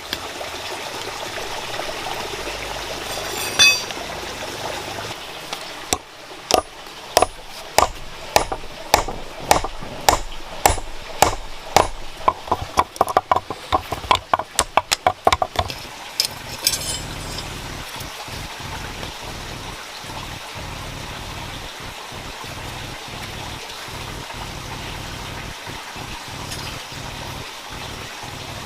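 A run of sharp, ringing strikes, about two a second for roughly ten seconds, typical of hammering on metal. Steady running water can be heard before and after.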